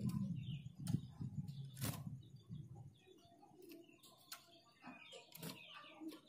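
Caged female Javan grey-throated white-eye (opior jawa) giving short, soft high chirps as it hops and flutters between perches, with sharp taps from its feet and wings on the perch and cage. A low murmur fills the first three seconds.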